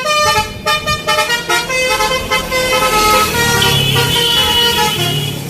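Container truck's telolet horn, a multi-tone musical air horn, playing a tune: quick short notes at first, then longer held notes.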